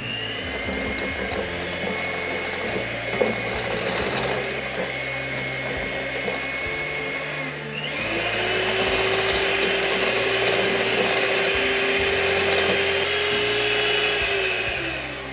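Handheld electric mixer beating sponge-cake batter in a bowl: a steady motor whine that steps up to a higher, louder speed about eight seconds in, then winds down near the end.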